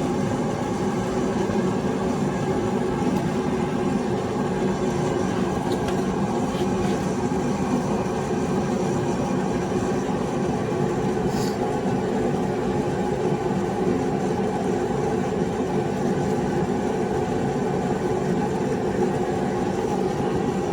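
Space heater running in the shop, a steady drone that does not change.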